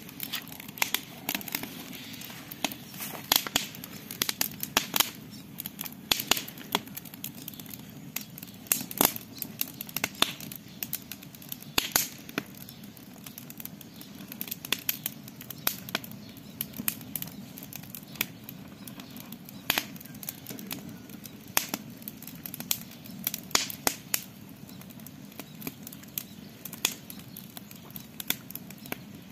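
Campfire crackling, with sharp irregular pops and snaps over a steady low rush of flame.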